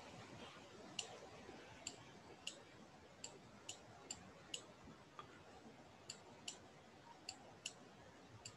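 Faint, sharp clicks from drawing on a computer whiteboard, about a dozen of them, mostly in pairs less than half a second apart.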